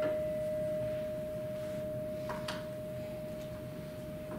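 A struck bell's single tone ringing on and slowly fading, its higher overtones already gone: the remembrance bell sounded after each name is read. Two faint taps about halfway through.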